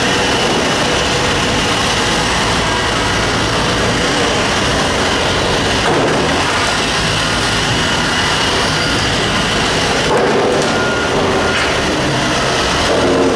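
Liebherr R9200 mining excavator's diesel engine running steadily as the machine crawls slowly on its tracks, a loud, even machine noise.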